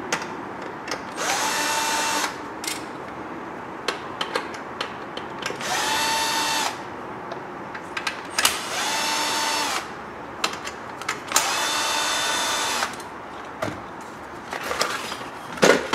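Cordless drill/driver backing out the Phillips screws that hold a factory car radio in its bracket: four short runs of about a second each, each spinning up to a steady whine. Small clicks and knocks of screws and parts being handled come between the runs.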